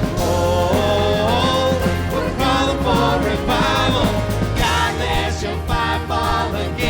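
Live worship band music with singing: a contemporary Christian worship song, with steady bass and sung melody lines.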